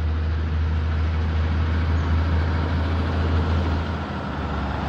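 Heavy truck driving by close, its engine and tyres making a steady road rumble that dips briefly about four seconds in.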